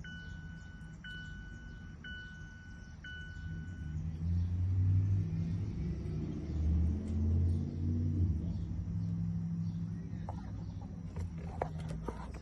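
Electronic beeps, about one a second, four times, then stopping. A low rumble then swells and fades over several seconds, with a few clicks near the end.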